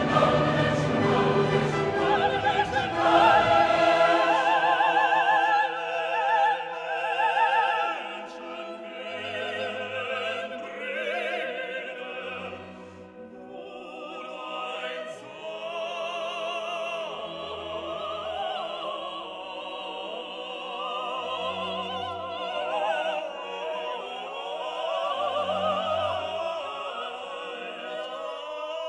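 Background classical music: an operatic voice singing with strong vibrato over an orchestra, louder for the first several seconds and softer from about eight seconds in.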